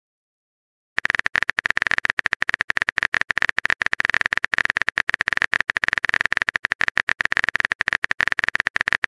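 Rapid run of clicks from a phone keyboard typing sound effect, each tick carrying a bright steady pitch, starting about a second in: a message being typed.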